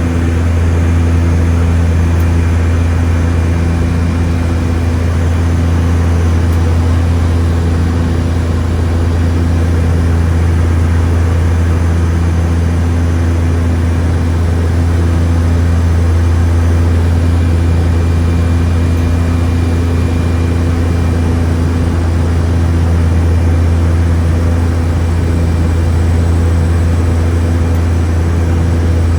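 Seaplane's propeller engine running steadily in cruise flight: a loud, even, low drone with no change in pitch.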